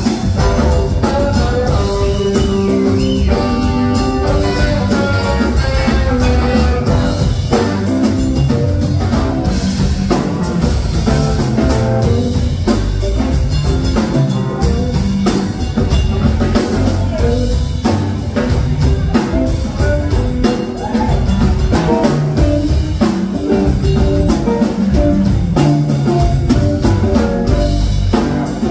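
Live rock band playing an instrumental jam, with electric guitar lines over bass and drums, at a steady loud level with no singing.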